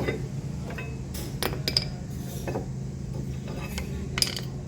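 Metal tools and parts clinking and tapping as they are handled during brake work, with a few sharp clinks between about one and two seconds in and another near the end, over a steady low hum.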